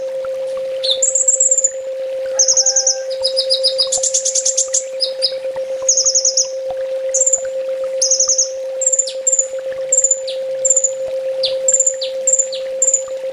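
Kolibri ninja (a small sunbird) singing a fast, very high-pitched song. Rapid trills and buzzy rattles give way about halfway through to a run of short, sharp notes, each with a quick falling sweep, about two a second. A steady low hum runs underneath.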